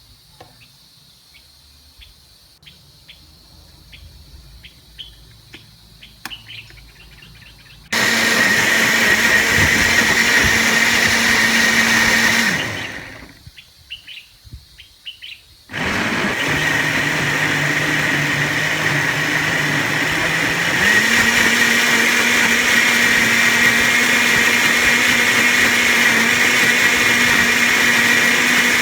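Faint light ticks at first, then an electric kitchen blender switches on about eight seconds in and runs steadily. It winds down and stops a few seconds later, then starts again at a lower speed and steps up to a higher speed about twenty-one seconds in, running on from there.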